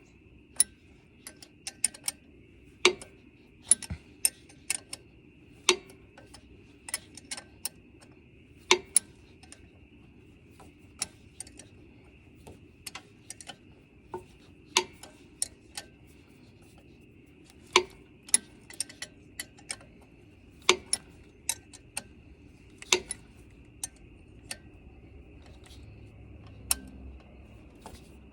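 Hand wrench clicking and tapping against metal bolts and fittings, irregular sharp clicks with a louder one about every three seconds, as a bolt is turned a little at a time in a tight spot.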